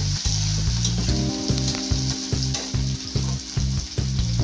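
Sliced onion and chopped tomato frying in hot oil in a kadai, sizzling steadily, with a spatula scraping and clicking against the pan as it stirs. Background music with a pulsing bass runs underneath, and held chords come in about a second in.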